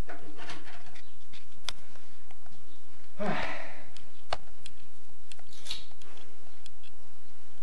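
A few light clicks and taps from handling small metal parts, with a short rustle about three seconds in, over a steady low hum.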